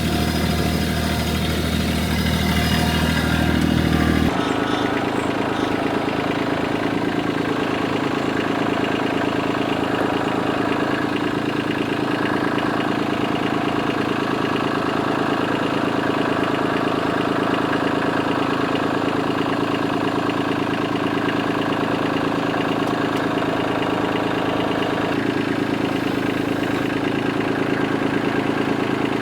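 An engine running steadily near idle. Its sound changes abruptly about four seconds in, the deep low end dropping away, then runs on evenly.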